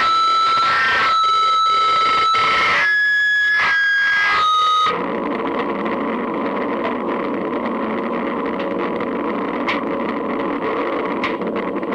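Experimental noise music from a lo-fi cassette. Sustained pitched tones shift about once a second, then cut abruptly about five seconds in to a dense wall of hiss-like noise with a few faint clicks.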